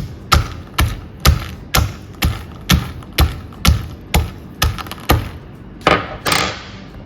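Kitchen knife chopping on a cutting board in a steady rhythm of about two strokes a second, with a longer, noisier stroke near the end.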